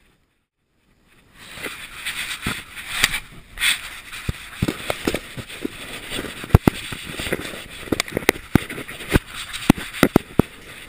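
Contact noise from an action camera worn by a dog: irregular sharp knocks and clicks with rustling as the camera housing bumps and brushes against a bag and fabric. It starts about a second in, after a brief silence.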